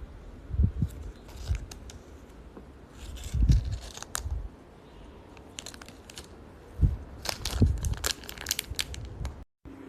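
Packaging of a keycap/switch puller being handled and opened: bursts of plastic crinkling and tearing with sharp clicks and dull knocks, in three main clusters.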